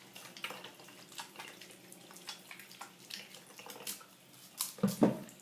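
Wet hands rubbing a bar of day-old olive-oil Castile soap, giving irregular small wet squelches and clicks, with two louder ones near the end.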